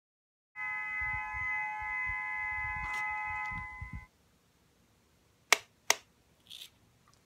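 DX Amazons Driver toy belt being handled: a steady electronic chord of held tones for about three seconds, with handling bumps underneath, cuts off suddenly. Two sharp plastic clicks about half a second apart follow near the end.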